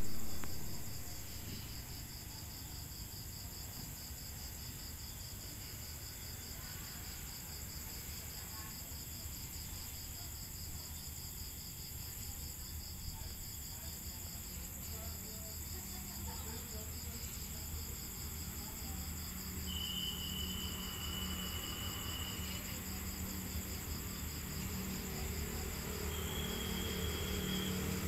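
Crickets chirping in a steady, pulsing chorus, with the low rumble of an approaching Hitachi diesel locomotive growing louder in the second half. Two short, steady high tones sound over it a few seconds apart.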